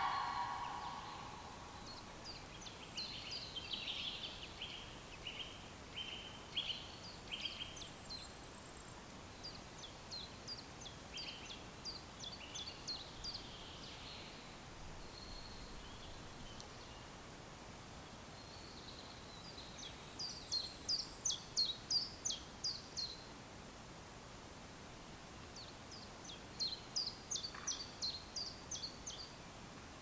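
Small songbirds singing: scattered high calls through the first half, then a run of about a dozen quick repeated notes about 20 seconds in and another about 27 seconds in, over a faint steady background hiss. A louder, lower call dies away in the first second.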